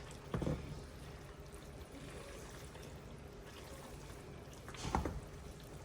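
Creamy fettuccine carbonara being stirred and folded in a pan over low heat, a soft wet stirring noise with two louder moments, just after the start and about five seconds in.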